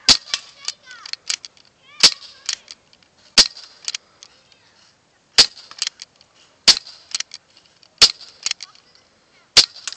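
CO2-powered HK USP .45 BB pistol (non-blowback) firing seven sharp pops, one every one and a half to two seconds, each followed by a few fainter clicks.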